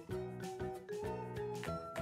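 Background music: an instrumental tune with a bass line under melody notes that change several times a second.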